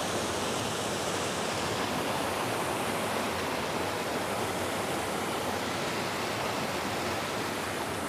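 Waterfall white water rushing steadily past rocks, a constant even rush.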